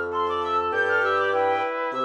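Woodwind quintet of piccolo, flute, oboe, bass clarinet and bassoon playing a light, nautical-feeling tune. Quick sixteenth-note runs in the piccolo sit over a bassoon line moving between low held notes, with short phrases in the flute and oboe.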